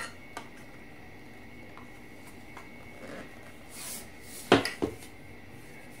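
Plastic parts of a handheld vacuum cleaner knocking together as it is handled and its flexible hose is fitted into the inlet, with two sharp clicks about four and a half seconds in.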